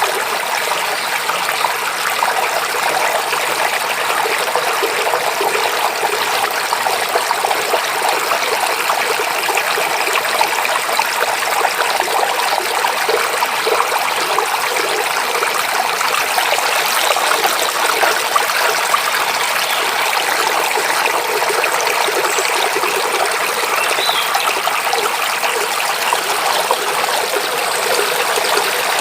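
A mountain stream babbling, a steady rush of running water with no let-up.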